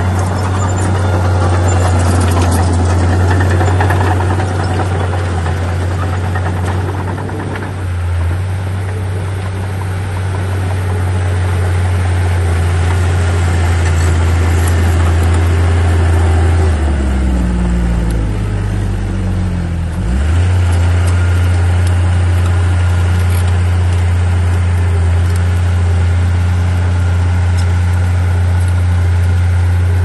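Komatsu D37P bulldozer's diesel engine running at work, a steady low drone with a rattling layer over it for the first several seconds. About halfway through the engine note drops for a few seconds, then picks back up.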